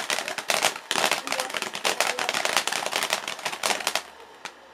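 Ground firework crackling: a dense, rapid run of sharp cracks and pops from its crackling stars. It dies away about four seconds in, with one last crack shortly after.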